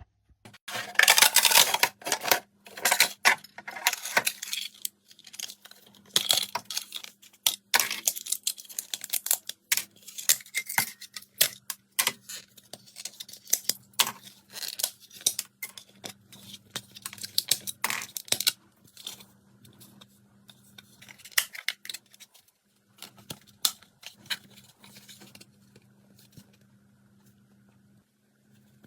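Plastic being handled and worked by hand: irregular bursts of tearing, crinkling and sharp clicks over a faint steady hum. The handling is busiest in the first few seconds and grows sparse after about twenty seconds.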